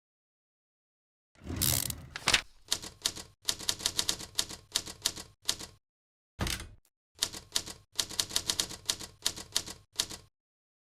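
Typewriter typing sound effect: rapid clacking key strikes in two runs of about four and three seconds, with a single heavier strike in the gap between them. It begins about a second and a half in.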